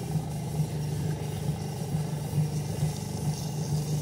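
Electric potter's wheel running, its motor giving a steady low hum with a slight regular pulse while wet clay is shaped on the spinning wheel-head.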